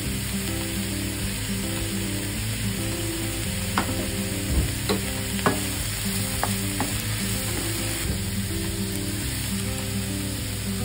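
Mushrooms, eggplant and green pepper sizzling in a frying pan as they are stirred with a wooden spatula. Several sharp knocks of the spatula against the pan come around the middle.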